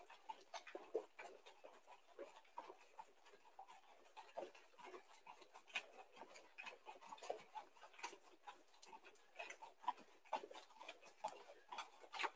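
Faint, repeated soft thuds of bare feet landing on judo mats during jumping jacks, over a steady faint hiss.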